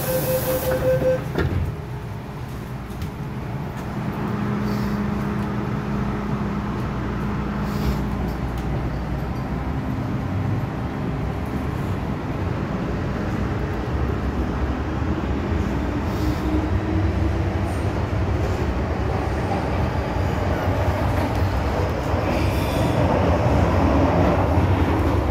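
Interior sound of an MTR M-Train electric multiple unit in motion: steady low rumble of wheels on track with faint traction-motor tones, one rising briefly, the whole growing louder toward the end. A short steady tone sounds in the first second.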